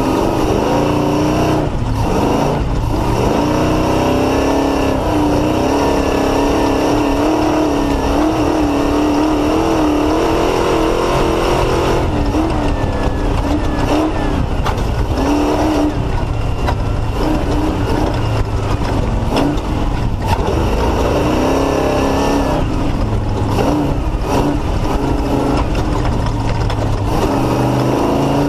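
Off-road race vehicle's Mullenix-built race engine running hard at race pace, its pitch rising and falling continually with throttle and shifts, with a few brief sharp knocks along the way.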